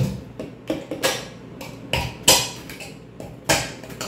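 Kitchen knife tip stabbed repeatedly into an open aluminium beer can standing on a countertop: about five sharp, irregularly spaced knocks as holes are punched in the can.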